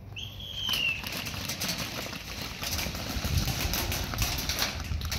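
A short high tone falling in pitch, then a clatter of many sharp clicks and knocks: airsoft rifles firing and players' gear rattling as a team advances.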